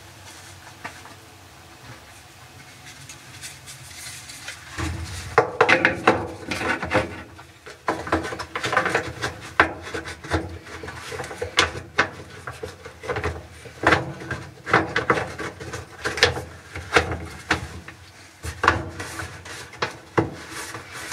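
The plastic lint-trap housing and grille of a clothes dryer being handled and pressed back into place. Irregular knocks, clicks and rubbing of plastic parts begin about five seconds in, after a quiet start.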